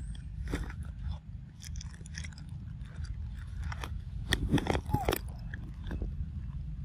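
Long-tailed macaque chewing soft papaya: a run of small wet clicks and smacks that gets denser and louder about four seconds in, over a steady low rumble.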